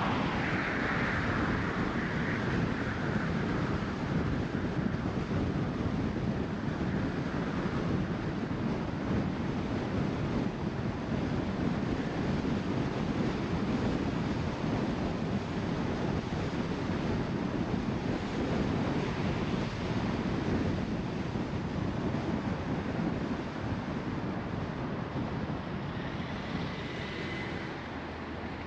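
Steady road and tyre noise with wind rush from a car being driven, a little louder and brighter in the first few seconds.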